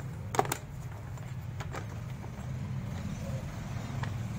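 A few sharp knocks and clicks from handling, the loudest pair about half a second in, over a steady low hum.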